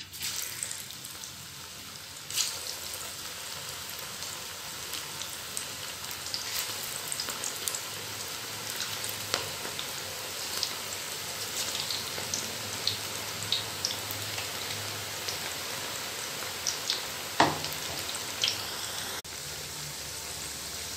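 Cabbage pakoras, gram-flour batter fritters, deep-frying in hot oil in a wok: a steady sizzle with frequent crackles and pops. It starts suddenly as the first fritters go into the oil.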